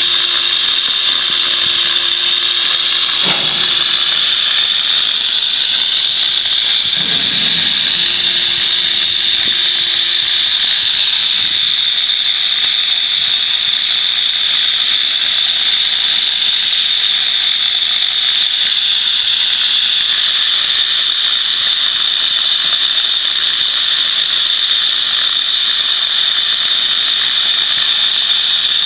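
Oxy-fuel cutting torch on a track-mounted automatic cutting machine, giving a steady high hiss as it cuts through steel plate.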